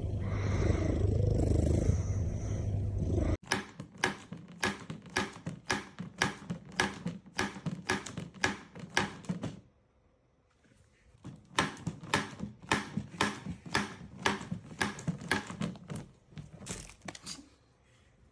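A cat purring loudly close up. Then, after an abrupt cut, a long run of short soft clicks, about three a second, that pauses briefly midway and fades near the end.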